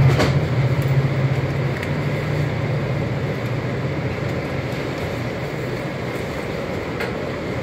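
Freight train of CSX autorack cars rolling past at speed, a steady rumble and rush of wheels on rail, heard from inside a Metro car standing at the platform. A low drone in the first two seconds fades out as the train goes by.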